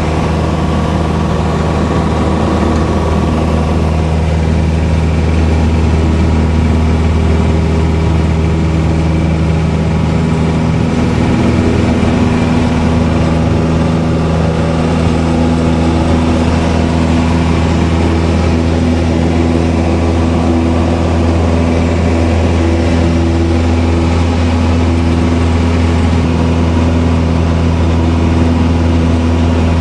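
Light aircraft's piston engine and propeller at full takeoff power through the takeoff roll and climb, heard inside the cabin as a loud, steady drone. The pitch of the drone shifts about ten seconds in.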